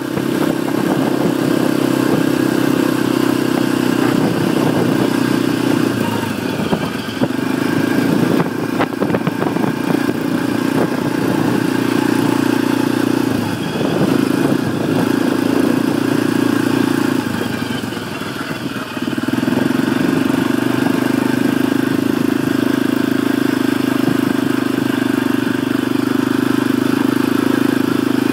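A vehicle's engine running steadily under way on a dirt track, its note easing off and coming back three times.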